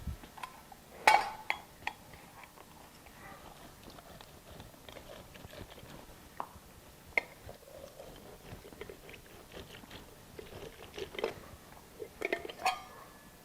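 A lemon being juiced by hand into a bowl: soft wet squishing and crackling, with a few sharp knocks about a second in and again near the end.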